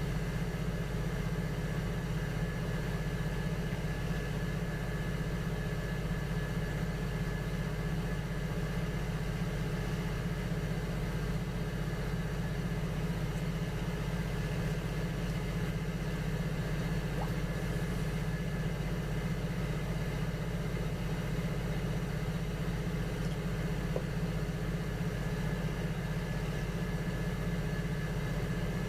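Electric potter's wheel motor running at a steady speed: a constant hum with a faint high whine on top.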